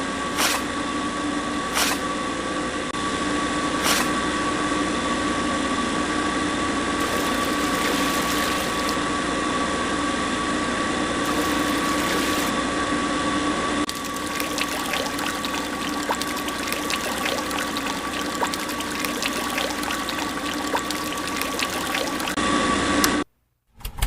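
A small DC motor on a homemade miniature concrete pump runs steadily with a high whine and a lower hum, pumping wet mix. There are a few sharp clicks early on. From about halfway a wet crackling joins, and the motor cuts off abruptly near the end.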